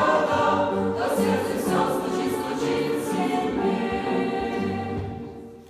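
Choir singing a Christian song, fading out near the end.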